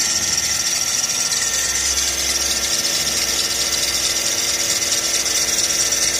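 Kia engine running with its alternator (accessory drive) belt giving a steady, high squeal, particularly obvious. The squeal comes from a worn belt that keeps shaking, a sign that the automatic belt tensioner has failed as well.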